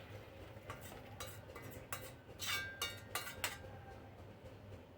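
A spoon clinking against a pan while the cooked liquid is stirred and scooped: about a dozen light clinks over roughly three seconds, a few ringing briefly, then it stops.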